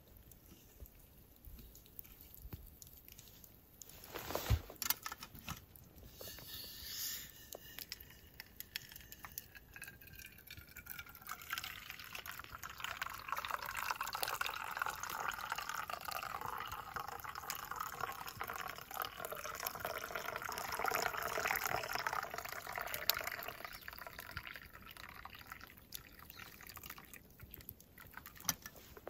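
Hot liquid poured from a kettle into a stainless steel camp cup, the stream splashing into the cup. It builds up about a third of the way in, is loudest about two-thirds through, and tails off near the end. A single sharp knock comes about four seconds in.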